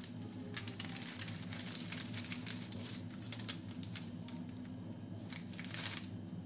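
Kitchen knife cutting through puff pastry on parchment paper: soft scattered taps and paper rustles as strips are sliced and lifted off, over a steady low hum.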